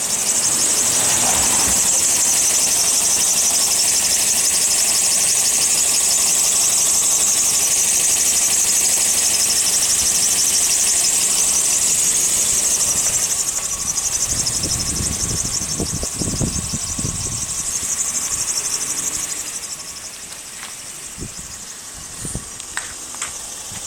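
Toyota Vios engine's drive belt squealing, a loud, steady, high-pitched screech over the running engine. It is the abnormal belt noise that dealer repairs have not cured. The squeal dies away a few seconds before the end, leaving the engine and a few clicks.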